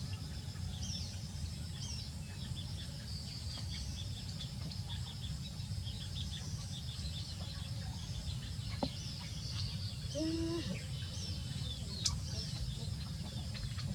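Birds chirping repeatedly in short high calls, with one short lower call about ten seconds in, over a steady low rumble.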